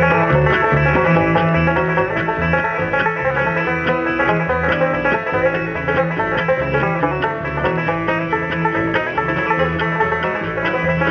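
Live bluegrass band playing an instrumental passage: banjo picking leads over guitar and a bass line, with no singing. The music starts abruptly.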